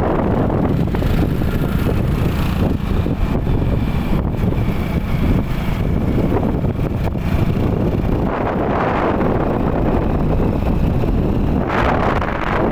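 Wind rushing over the microphone of a moving two-wheeler, with its road and engine noise underneath. The noise is steady and loud and swells briefly about two-thirds of the way in and again near the end.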